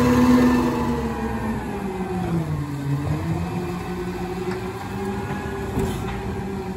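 Natural-gas engine of a Peterbilt 520 side-loading garbage truck pulling away. Its pitch dips about two and a half seconds in and then climbs again as it accelerates off, growing fainter.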